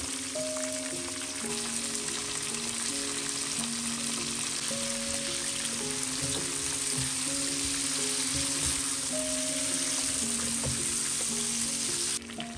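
Chicken drumsticks deep-frying in a wok of hot oil, sizzling steadily, with a few light spatula knocks as they are turned. The sizzle drops sharply near the end. A soft melody of background music plays underneath.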